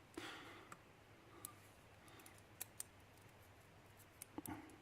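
Faint, sparse small metallic clicks and ticks, about half a dozen, from tiny pin-tumbler lock pins and springs being handled with tools as a pin chamber is emptied. Between the clicks it is near silent.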